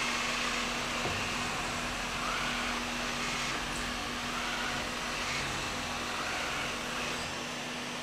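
Samsung Powerbot R7040 robot vacuum running in cleaning mode: a steady whirr from its suction fan with a constant low hum underneath.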